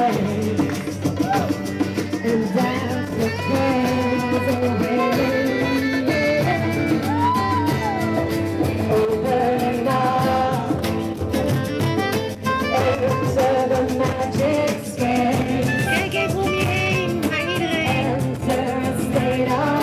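Live acoustic band music: strummed acoustic guitars, a frame drum beaten with a mallet and a saxophone, with voices singing over a steady beat.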